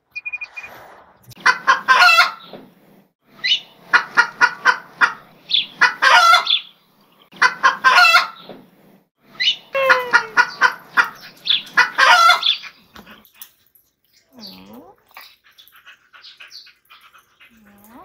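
A chicken clucking in about five loud bouts of rapid clucks, roughly two seconds apart, stopping about 13 seconds in; only faint scattered sounds follow.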